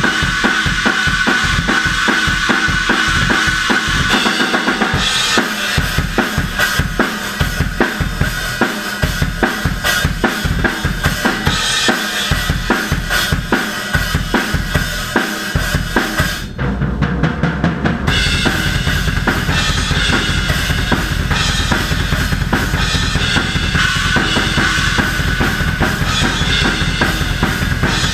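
Death metal drumming on a full drum kit: rapid bass drum strokes under snare and cymbals. About sixteen seconds in, the cymbals stop for a moment, then a continuous, very fast double-bass drum pattern takes over to the end.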